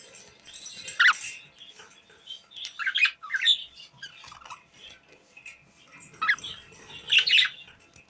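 Pet budgerigars chirping in short, pitch-sliding calls that come in clusters: one loud call about a second in, a run of calls around three seconds in, and more about six and seven seconds in, with softer chatter between.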